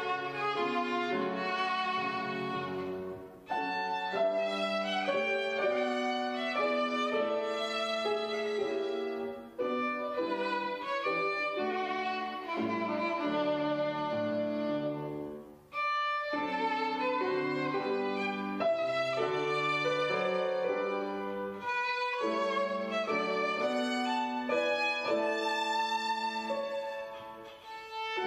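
Solo violin with grand piano accompaniment playing classical music in flowing phrases. There are brief breaks between phrases about 3.5, 9.5 and 16 seconds in.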